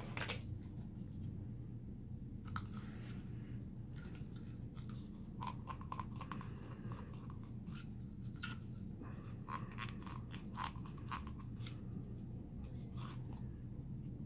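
Paperboard box flaps being folded and eased into place by hand: scattered small crinkles, creaks and clicks of the card over a steady low hum.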